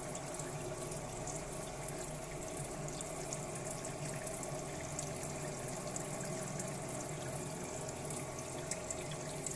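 Water running steadily from a small chrome fountain spout and splashing into a plastic tub.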